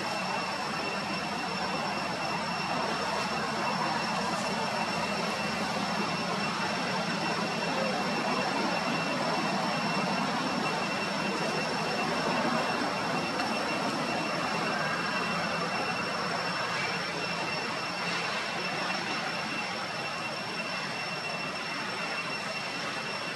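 Steady outdoor background noise, an even rushing hiss with a continuous high-pitched whine running through it.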